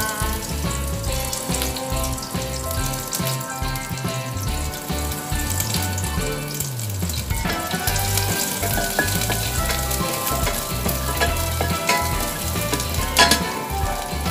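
Chopped garlic sizzling in hot butter and olive oil in a stainless steel saucepan as a wooden spoon stirs it. A sharp knock near the end.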